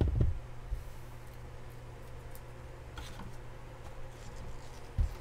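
Soft low thumps and a few faint clicks of objects being handled and set down on a tabletop: one thump at the start, light clicks about three seconds in, and two sharper thumps near the end, over a steady low hum.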